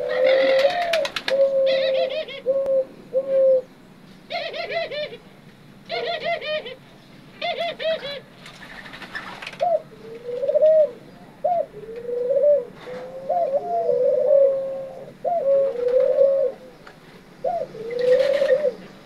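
Captive doves cooing over and over in short, low coos with a rising-and-falling lilt, one phrase after another with brief gaps.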